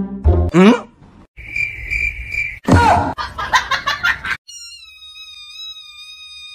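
A newborn kitten giving one long, thin, high mew that starts about two-thirds of the way in and slides down in pitch as it ends. Before it there is a steady high whistle-like tone and then a louder, short noisy burst.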